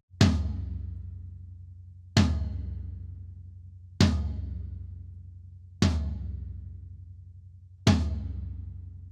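Floor tom of a Tama Star walnut drum kit struck once about every two seconds with a stick, five single hits, each leaving a long, deep, fading ring: an isolated sound-check hit on the second floor tom.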